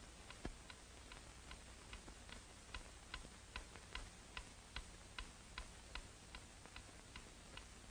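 Ornate mantel clock ticking faintly: a steady tick-tock of a few ticks a second.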